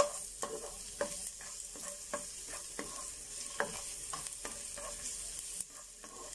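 Minced garlic frying in a little oil with a light, steady sizzle, while a plastic spoon stirs it, scraping and tapping the coated pan in short strokes about twice a second.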